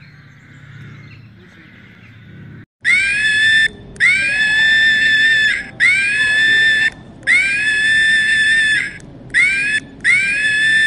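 Loud, high-pitched animal screams, six calls starting about three seconds in, each rising at its onset and then held level for about a second.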